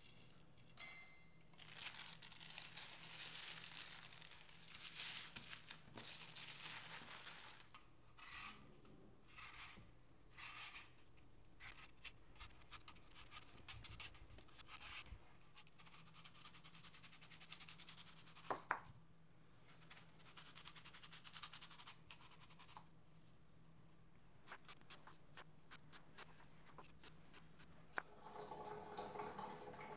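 Intermittent scraping and rustling of hand food preparation: a silicone spatula scraping and pressing crumbly tart dough on a worktop, then an apple being peeled.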